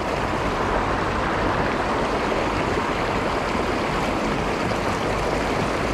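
Shallow stream running fast over rocks and riffles, a steady rush of water.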